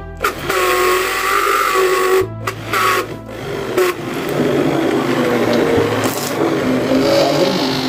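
Electric immersion blender running in a pot of soup, pureeing boiled nettles while flour is blended in; the motor hums steadily over the churning liquid and cuts out briefly a few times around two to three seconds in.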